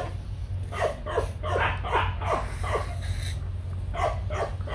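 A dog yipping and barking in a quick run of short calls, about five a second, with a couple more near the end, over a steady low hum.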